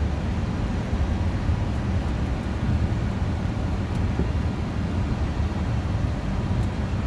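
Steady flight-deck noise of a Boeing 747-400 on short final approach: an even, low airflow and engine noise with no distinct events.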